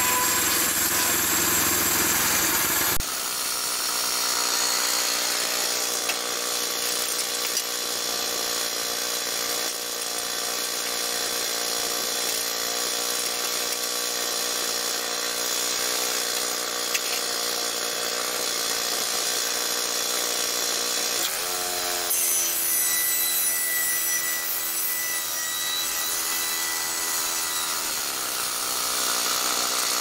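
The gas engine of a Harbor Freight portable bandsaw sawmill runs steadily while its band blade cuts along a slab of wood. Just past the 21-second mark the engine's pitch rises and holds higher, then falls back a couple of seconds before the end.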